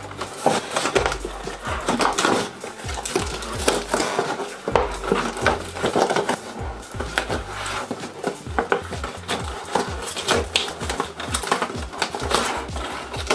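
Clear plastic and cardboard toy packaging being handled and pried at: irregular crackles, taps and scrapes of the stiff plastic window box as it is turned and worked open.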